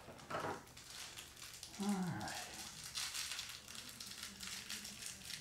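Loose metal screws rattling and clinking against each other in a clear plastic bin as it is tilted and rummaged through, in quick dense clusters mostly in the second half. A brief low falling voice sound comes about two seconds in.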